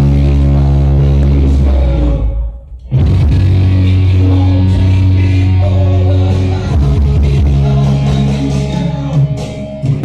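Rock song with singing and guitar playing loud through a home stereo system. It drops away briefly about two and a half seconds in, then comes back in full.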